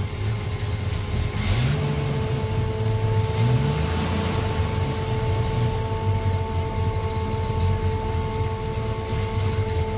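Ford XY Falcon's inline-six engine running on its first start after sitting for 30 years, revved up twice in the first few seconds and then settling to a steady idle. A steady whine sets in just after the first rev.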